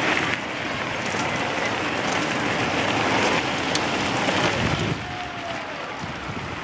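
A pack of mountain bikes rolling past on a gravel path: a steady rush of knobby tyres crunching over gravel and dirt, dropping in level about five seconds in.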